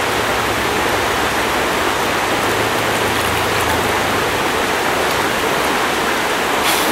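Shallow, rocky trout stream running over stones: a steady wash of moving water.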